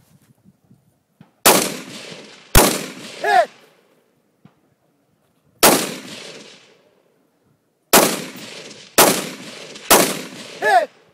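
Six single rifle shots from an AR-15, fired one to three seconds apart at an uneven pace, each with a rolling echo. Two of the shots are followed a moment later by a short ringing sound.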